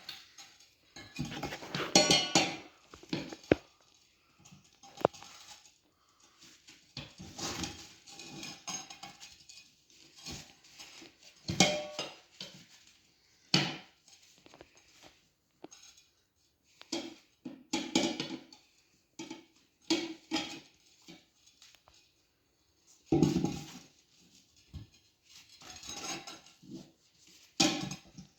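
Metal tire irons clinking and scraping against a dirt bike wheel rim in irregular bursts with short pauses, as the tire bead is levered back onto the rim.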